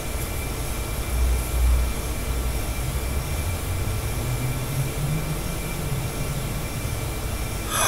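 Steady low rumble with a hiss of background noise, unchanging throughout.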